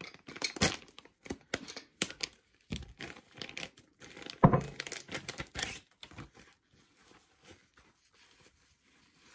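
Clear plastic bag crinkling and tearing as it is opened and pulled off by hand, in quick irregular rustles. The loudest rustle comes about halfway through, and the handling thins out and fades after about six seconds.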